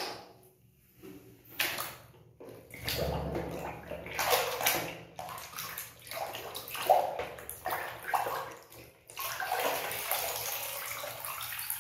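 Hands sloshing and swishing water in a plastic basin of soapy water, in irregular strokes, turning into a continuous rush of water in the last few seconds.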